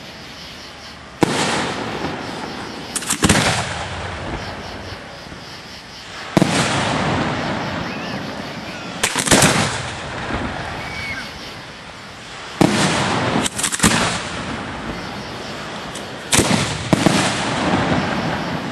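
Aerial firework shells going off in quick succession: about seven sharp bangs a couple of seconds apart, each followed by a long rolling echo, with bursts of crackling between them.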